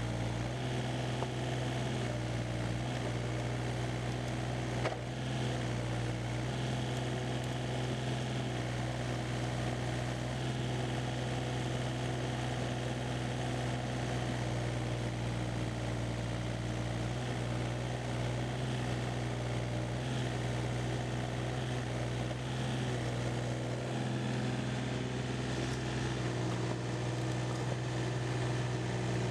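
Case CX36B mini excavator's 28 hp Yanmar diesel engine running at a steady speed, with one brief click about five seconds in.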